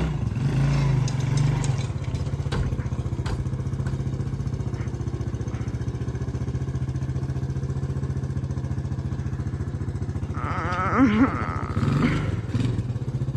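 Four-wheeler (ATV) engine running at a steady idle, a little stronger in the first second or so. A brief wavering higher-pitched sound rises over it about eleven seconds in.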